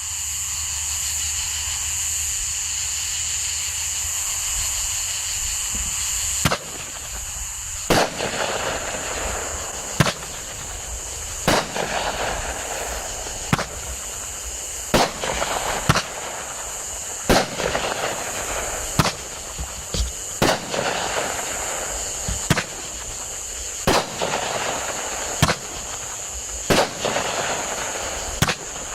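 "Shine Time" multi-shot aerial firework cake firing shot after shot. From about six seconds in, a sharp report comes roughly every one and a half seconds, with a crackling glitter hiss between the shots. Before the first shot there is only a steady high-pitched background hiss.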